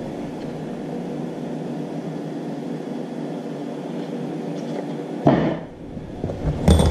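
Steady hum of an electric box fan running in the workshop. Near the end comes a sudden rustle and a few sharp knocks as wooden pieces are handled on the bench.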